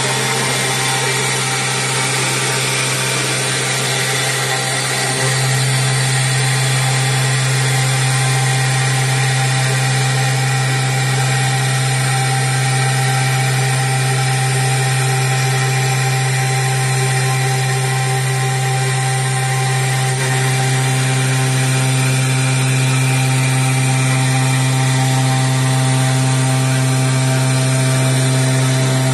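CNC machine spindle cutting a clear sheet under water coolant: a steady machine hum with several held tones, getting louder about five seconds in.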